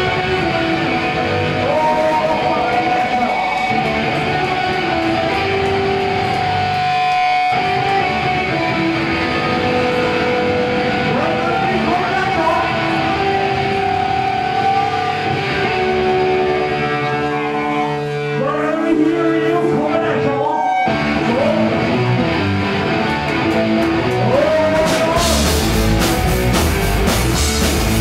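Live rock band playing loud: distorted electric guitars play a riff with held notes over bass guitar, with short breaks twice. The full drum kit comes in near the end.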